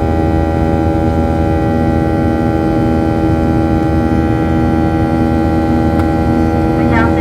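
Jet engines running steadily: a loud, unchanging hum with several steady whining tones over a low rumble.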